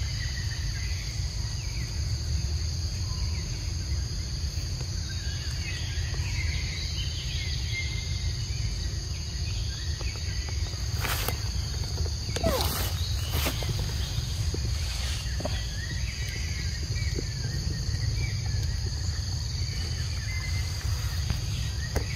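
Steady high-pitched drone of insects, with a low rumble underneath. A few short clicks or rustles come about halfway through.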